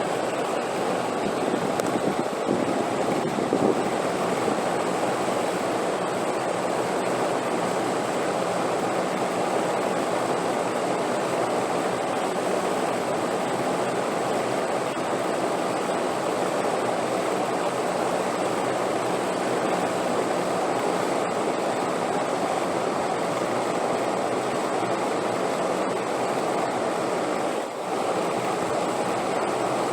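Steady wind noise: an even, unbroken rushing that swells a little a few seconds in and dips briefly near the end.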